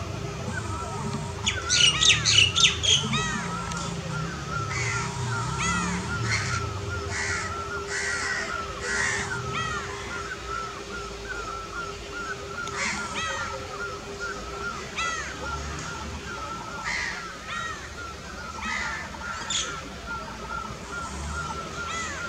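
Crows cawing, with a loud burst of harsh caws about two seconds in, over continual chirping and chattering of other birds.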